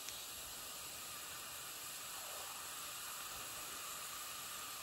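Steady, soft hiss from a pot of frozen creamed spinach heating on the stove, with a light tap right at the start.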